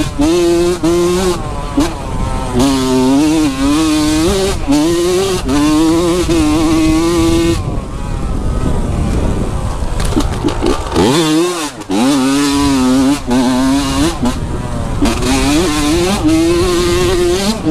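A dirt bike engine running at high revs, its pitch wavering up and down as the throttle is worked. About eleven seconds in the revs drop steeply and climb back up.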